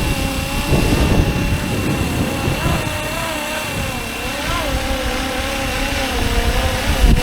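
Fly-Wing MH-60R SeaHawk 470-class RC helicopter flying, its motor and rotors whining at a pitch that wavers slowly up and down with the throttle, with gusty wind rumble on the microphone.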